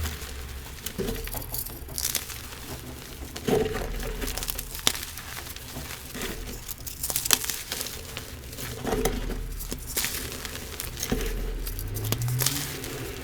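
Pressed blocks of chalky powder being crushed by hand, crunching and crumbling into powder in repeated squeezes every couple of seconds, each with a dull thump and a spray of fine crackles.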